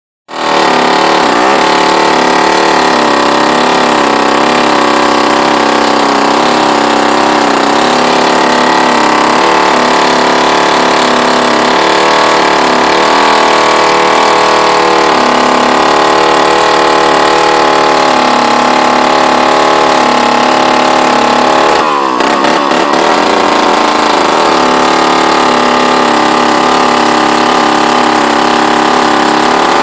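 Hoffco G-58 vintage two-stroke chainsaw running at high speed while cutting pine, its engine note wavering under load. About 22 seconds in the note briefly dips and sweeps before settling again.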